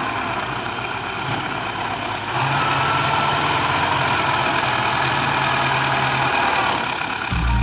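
Belarus 510 tractor's diesel engine running steadily, getting louder about a third of the way in; music comes in just before the end.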